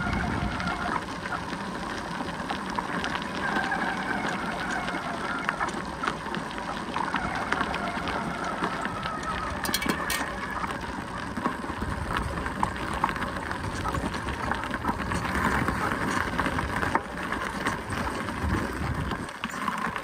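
Bicycle tyres rolling over a loose gravel path, a steady crunching crackle of stones under the wheels.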